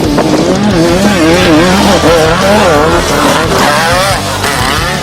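Off-road race vehicle engine revving hard, its pitch rising and falling in quick repeated waves as the throttle comes on and off.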